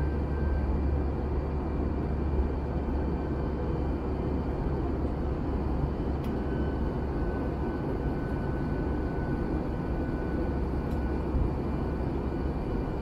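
Steady engine and airflow drone of an Airbus A321 in flight, heard inside the cabin: a strong low hum under an even rush, with faint steady whine tones on top.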